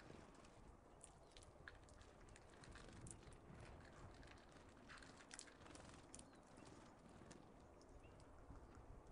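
Near silence broken by faint, scattered short clicks and high chips from small birds, tits and finches, at a seed feeder.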